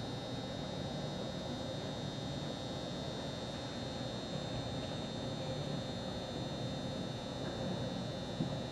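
Steady background hum and hiss of an indoor ice arena, with a constant high-pitched whine over it and one small knock near the end.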